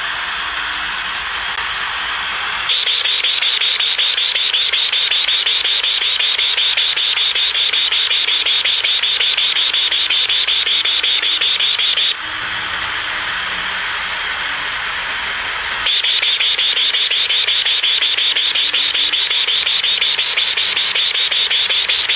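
Portable AM radio hissing with static, twice switching abruptly to a louder, rapidly pulsing high buzz, first for about nine seconds and then for about six, which is presented as the homemade LNB-and-radio metal detector's response to gold.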